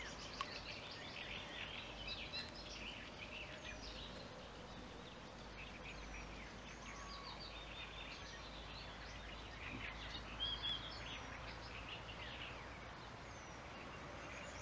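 Several small birds singing and chirping at once, a steady mix of quick chirps and short falling whistled notes, over a faint steady low hum.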